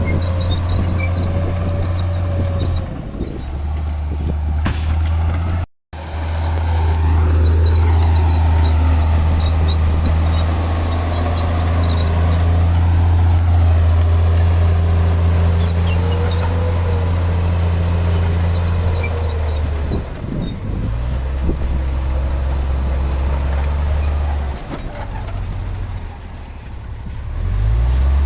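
Heavy diesel engine of earthmoving machinery running with a deep, steady drone that shifts in pitch several times as the load changes, with a faint wavering squeal over it. The sound cuts out briefly about six seconds in.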